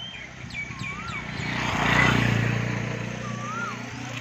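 A motor vehicle drives past close by, its engine hum and road noise swelling to a peak about halfway through and then fading. Birds chirp with short whistled notes.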